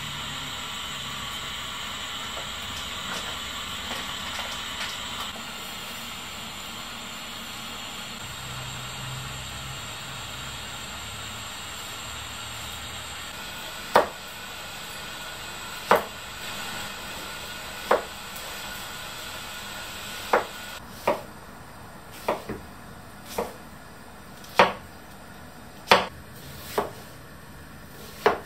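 A steady hiss from a gas stove heating a pot of water for about the first half. Then a chef's knife chops through cucumber onto a wooden cutting board: single knocks about two seconds apart, then quicker, uneven cuts.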